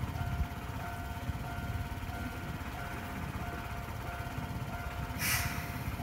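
Japanese railway level-crossing alarm ringing its repeated electronic bell tone, just under two rings a second, over a low rumble. A short burst of hiss about five seconds in.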